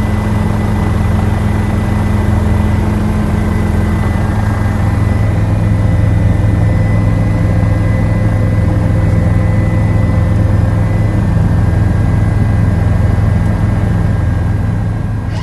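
Steady engine drone of an aircraft carrying the camera, heard on board: a loud low hum with a couple of thin steady whines above it, unchanging throughout.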